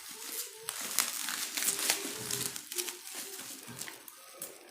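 Plastic parcel packaging being crinkled and handled by hand as it is opened, with irregular crackling.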